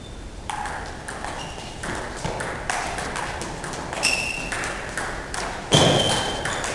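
Table tennis ball clicking off rubber paddles and pinging on the tabletop in a fast doubles rally, about two or three hits a second. A louder noise comes about a second before the end.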